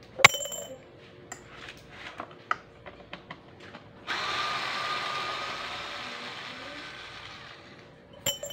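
Cordless screwdriver running on a screw in the plastic housing of a Kawasaki pressure washer, steadily for about four seconds and slowly getting quieter. Before it come a sharp metallic clink and a few light clicks, and another clink comes near the end.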